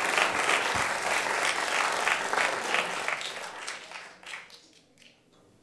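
Audience applauding, the clapping thinning out and dying away over about four seconds.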